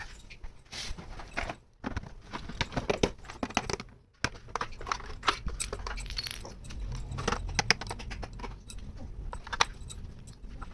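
Small hard plastic toy kitchen pieces clicking, tapping and rattling as they are handled and unpacked, in quick irregular knocks.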